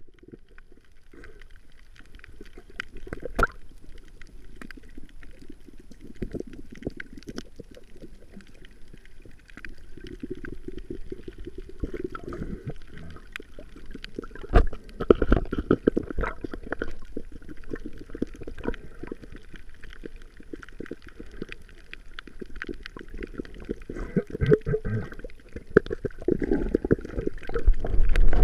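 Muffled underwater sound through a camera's waterproof housing: gurgling water and a low rumble from the snorkeler's movement, with many scattered sharp clicks and knocks. It grows louder near the end.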